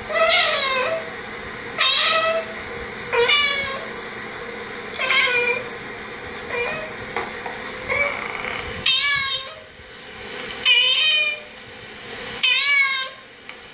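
Cat meowing on a video played through a TV's speakers: about nine separate meows, roughly one every second and a half, over a faint steady hum.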